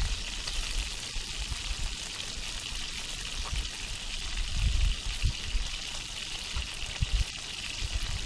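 Fish frying over an open fire, with a steady sizzle throughout. Low wind gusts buffet the microphone a few times, most strongly about halfway through.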